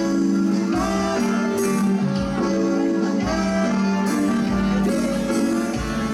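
Waltz music with guitar and long held notes, playing steadily.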